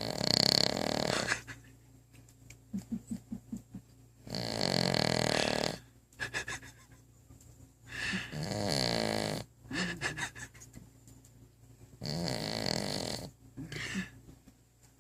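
A dog snoring in its sleep: four loud snores about four seconds apart, with a softer, quicker flutter between them.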